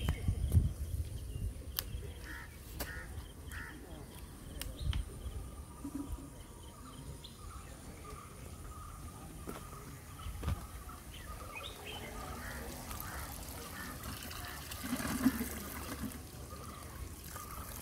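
Quiet pond-side ambience with scattered short bird chirps and small clicks. Near the end, water splashes as a plastic bottle is dipped into the pond.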